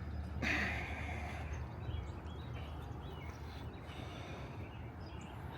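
Faint outdoor background noise with a steady low rumble that eases off after about two seconds.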